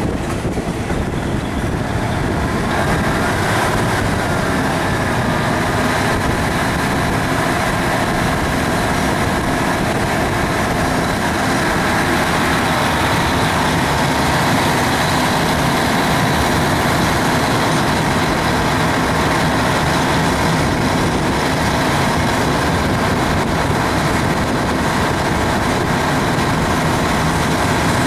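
Steady engine and road noise of a moving road vehicle, heard from on board; it builds over the first couple of seconds, then holds steady.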